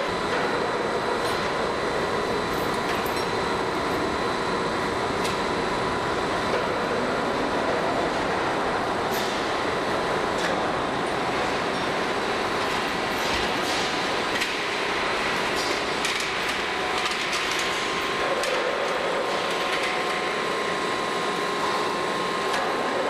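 DAIDO plate rolling machine running under load as it bends a thick steel plate: a steady mechanical drone with a constant whine and scattered light ticks.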